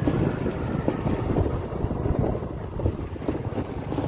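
Wind buffeting the microphone over the low rumble of a moving motorbike on a rough dirt track.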